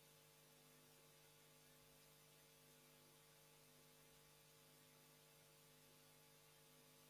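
Near silence: a faint, steady hum over low hiss.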